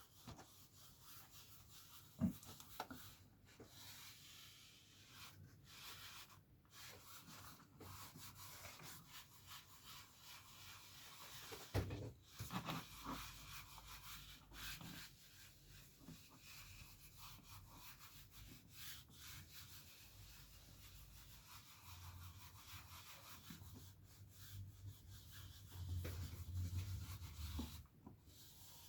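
Applicator cloth rubbing polish onto plastic bumper trim in soft, continuous strokes, with a couple of sharp knocks.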